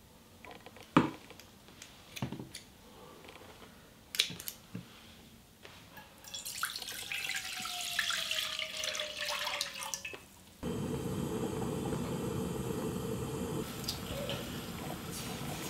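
A few sharp snips of kitchen scissors trimming bracken stems, the loudest about a second in. Then rice-washing water is poured into a stainless steel pot, with a falling tone as it pours. After a sudden cut, the pot of rice water boils steadily.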